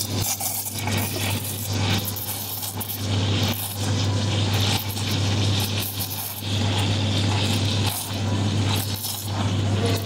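Espresso machine steam wand hissing steadily in a stainless steel pitcher as it steams and froths milk, surging unevenly, over a steady low machine hum.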